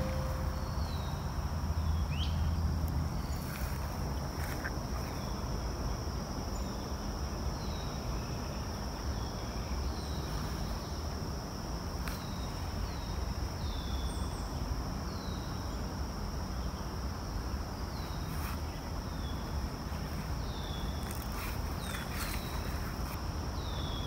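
Outdoor ambience: a steady high insect drone, with short falling chirps repeating about once a second, over the low hum of distant Interstate 95 traffic.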